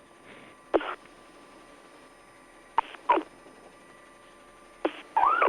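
Police radio keying up three times: each time a click and a brief clipped burst of narrow-band radio audio, over a faint steady hum.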